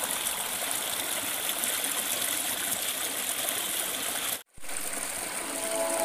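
Water of a small rocky stream rushing and splashing over stones in a steady hiss. The sound cuts out for a split second about four and a half seconds in. Soft music fades in near the end.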